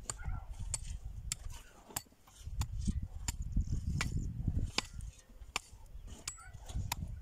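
Long-handled hand hoes striking dry, stony soil, a sharp chop about every half to three-quarters of a second as several people work the ground, with a low rumble underneath.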